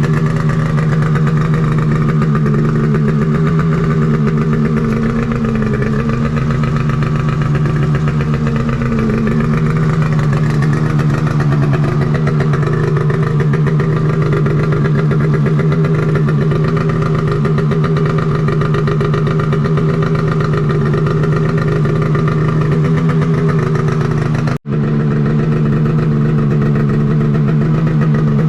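Polaris 850 Patriot two-stroke twin snowmobile engine idling steadily through a Sled Shed 'Cooker Thing' silencer, just after a cold start. The sound drops out for an instant about 25 seconds in.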